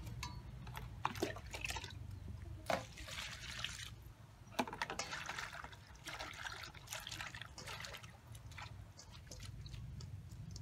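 Hands squeezing and mixing sliced banana flower in a stainless-steel bowl of water: irregular wet splashing and dripping, with a few sharp knocks against the bowl.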